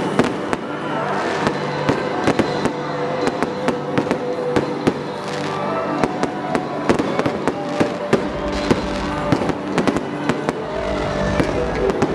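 Fireworks going off in a rapid, irregular string of sharp cracks and bangs, over music with held notes.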